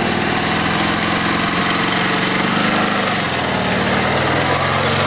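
Motorcycle engines running steadily at idle, with the engine pitch shifting about three seconds in.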